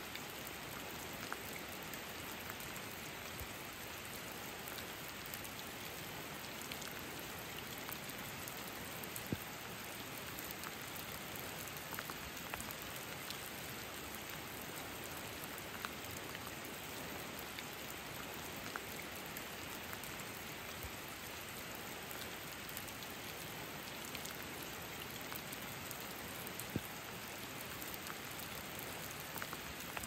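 Steady rain falling under a rainforest canopy: an even hiss of rain with scattered single drips, a few of them louder than the rest.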